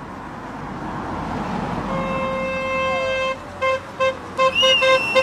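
Car horn held in one long blast for about a second and a half, then sounded in a run of short quick toots, about three a second. A separate high whistle-like tone rises and falls over the toots near the end.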